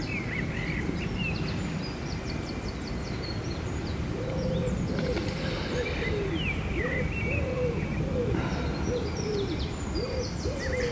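Birds calling: a low cooing call repeated over and over from about four seconds in, with smaller birds chirping higher up throughout.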